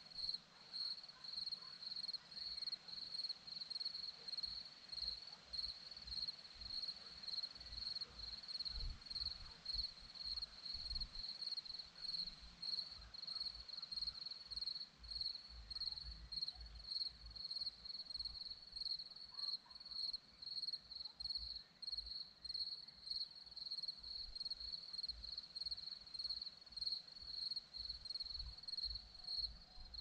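Crickets chirping in a steady high-pitched chorus that pulses about twice a second, with irregular low rumbles underneath.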